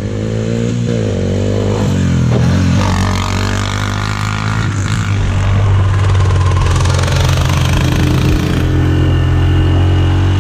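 Four-wheeler (ATV) engine running under way, its pitch shifting up and down over the first few seconds, then holding steady.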